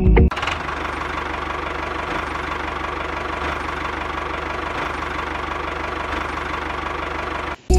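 Tractor engine running steadily with a fast, even chugging; it cuts in just after the start and cuts off suddenly near the end.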